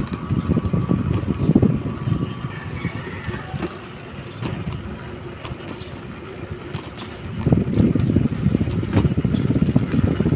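Wind buffeting the microphone as a BMX bike is ridden down a concrete street, a fluttering rush that eases off in the middle and picks up again about seven and a half seconds in.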